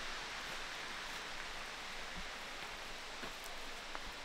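Steady rushing of a waterfall, an even, unbroken wash of falling water.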